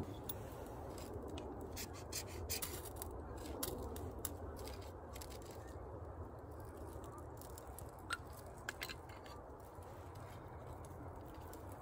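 Small clicks and scrapes of hands handling dry wood shavings and kindling while they are lit with a lighter to start a campfire. They come thickest in the first few seconds, with a few more near the end, over a steady low background rumble.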